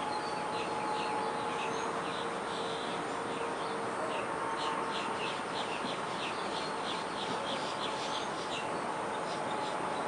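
Small birds chirping in quick, short, repeated notes over a steady outdoor background hum.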